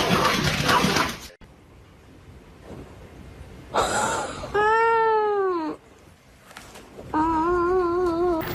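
A loud rushing noise stops abruptly about a second and a half in. Then a cat gives two long yowls: the first rises and falls in pitch, and the second, near the end, is held with a wavering pitch.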